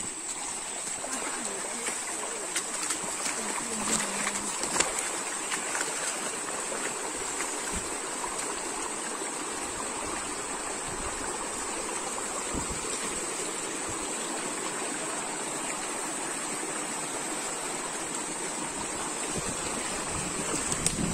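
Small shallow stream rushing and splashing over rocks, with a few sharp knocks or splashes in the first five seconds and a steady high whine.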